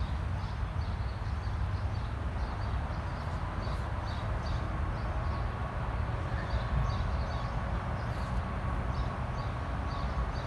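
Steady low outdoor rumble with faint, short high chirps repeating through it.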